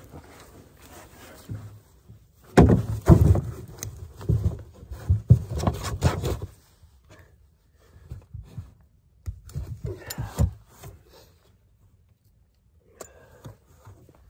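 A hard plastic sled knocking and scraping against the ground as it is pushed down over a trapped bobcat. There is a dense run of thumps and rustling for about four seconds, then a few softer knocks and shuffles.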